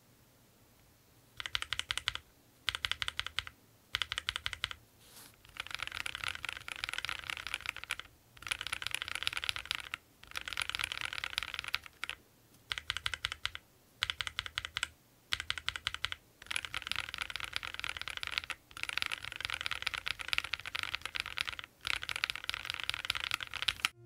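Akko Rose Red linear mechanical key switches being typed on in a keyboard: quick runs of keystrokes in repeated bursts with short pauses between them, starting about a second and a half in.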